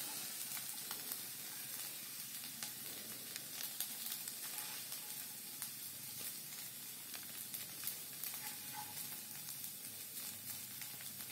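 Sabudana khichdi sizzling in the hot kadhai, a steady sizzle with scattered small crackles.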